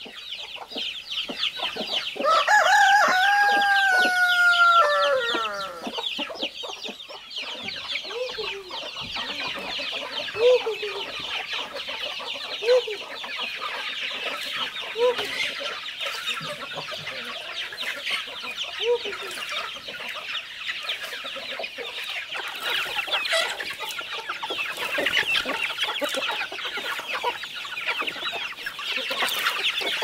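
Farmyard chickens: a rooster crows once, a long call a couple of seconds in, while hens give short clucks every couple of seconds and a brood of chicks peeps steadily and densely throughout.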